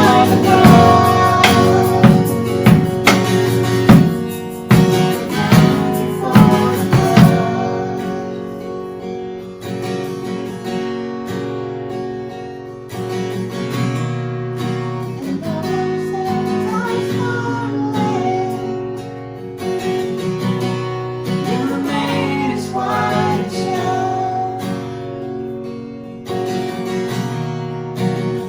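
Worship band playing an instrumental passage. It is loud with strong beats for about the first seven seconds, then drops to a softer passage led by acoustic guitar.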